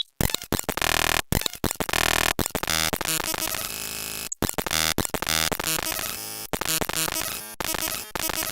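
US Emergency Alert System alarm audio sped up to an extreme rate, heard as a harsh, jumbled buzz of stacked tones and static-like noise that changes abruptly every fraction of a second. It cuts out briefly a few times: right at the start, about a second in, and past four seconds.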